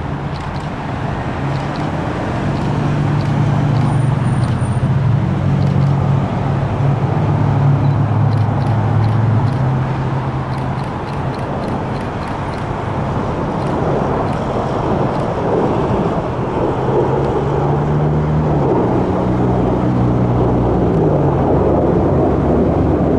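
Road traffic, with vehicle engines running and their pitch stepping up and down now and then, over a broad rumble that grows louder in the second half.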